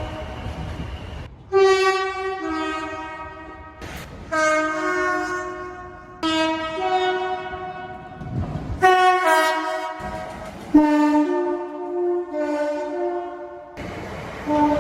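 Train horns sounding a string of two-tone blasts, each stepping between a higher and a lower note. About six soundings follow one another, starting abruptly one after another.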